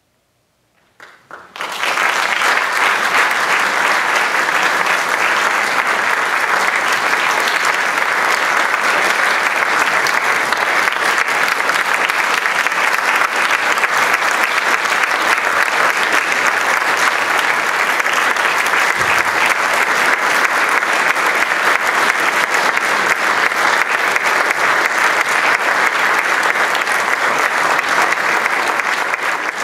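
Audience applauding: dense, steady clapping that breaks out about a second in after near silence.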